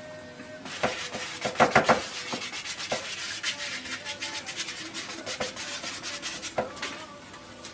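A paintbrush scrubbing and blending oil paint on a stretched canvas in rapid, repeated short strokes, giving a scratchy rubbing sound. It starts about a second in and is loudest early on.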